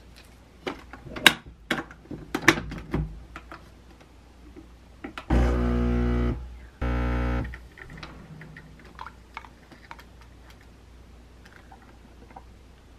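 A handful of sharp clicks and knocks as a coffee capsule is loaded into a capsule espresso machine. About five seconds in, the machine's pump buzzes loudly twice, for about a second and then for under a second, as it brews a shot.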